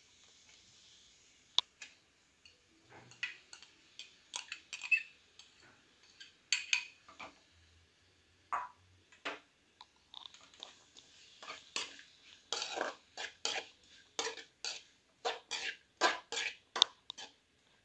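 A metal spoon scraping and clinking against a metal kadai as sliced onions are stirred in oil. The strokes are short and scattered at first, then come in quick succession through the second half.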